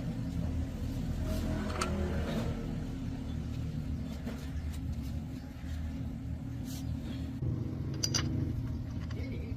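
A vehicle engine running with a steady low rumble, with a few light clicks or taps over it, the sharpest near the end.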